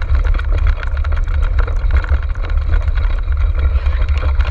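Wind buffeting the microphone of a camera riding on a dog-drawn racing cart, with the cart's rolling and rattling noise over rough ground: a loud, steady rumble with scattered clicks.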